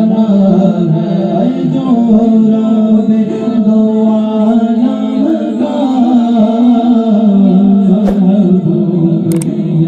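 Male voice singing a naat, drawn-out notes that waver and glide in a melismatic devotional line.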